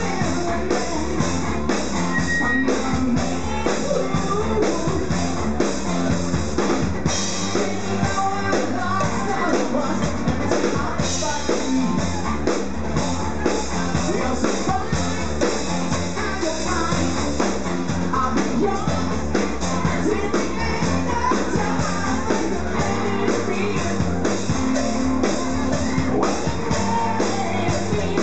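Live rock band playing: a singer over electric guitars and a drum kit, with a steady beat.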